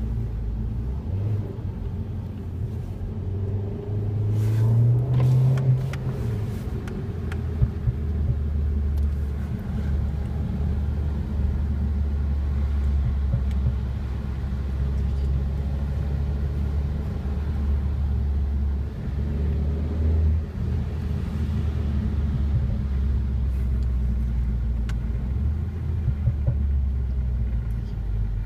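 Mini Countryman S four-cylinder turbo engine and sport exhaust under way, a steady low drone. About four to six seconds in it rises in pitch as the engine revs up, with a few short sharp cracks around then, before settling back into the steady drone.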